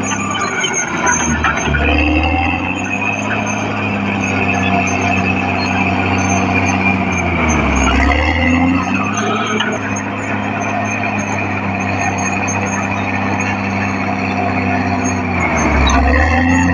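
Caterpillar D6R XL bulldozer's diesel engine running steadily at working speed. Its note drops and recovers three times, about a second and a half in, near the middle and near the end.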